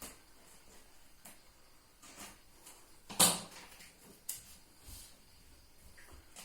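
Scattered handling noises: a few short knocks and rustles of material being moved and worked, the loudest about three seconds in.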